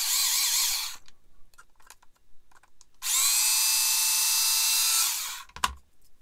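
Small handheld mini drill whining as it widens tiny holes in a plastic model part. The first run wavers in pitch under load and stops about a second in. After a short pause with faint handling clicks, it spins up again and runs steadily for about two seconds before stopping.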